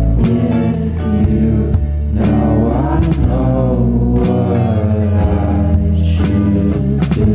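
Background music: a song with a singing voice over bass and percussion.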